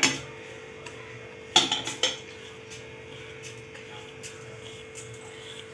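Steel kitchenware clinking as mustard seeds are taken off a steel plate for a tadka: a sharp clink at the start and two more close together about a second and a half in, over a faint steady hum.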